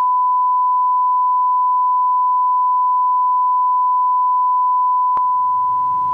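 Steady 1 kHz reference test tone, the 'bars and tone' line-up signal played with colour bars. About five seconds in there is a click, and a low hum with background noise fades in under the continuing tone.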